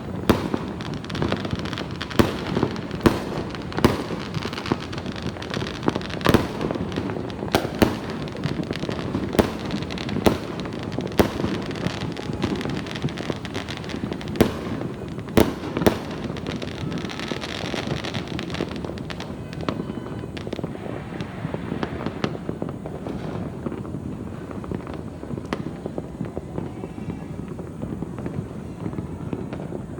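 Fireworks and firecrackers going off: many sharp bangs over a continuous crackle, densest during the first half and thinning out later.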